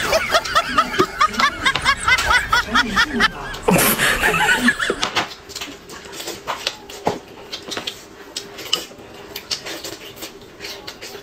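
Loud, rapid 'ha-ha-ha' laughter that stops about five seconds in. After that come quieter scattered clicks and smacks of roast chicken being torn apart by hand and chewed.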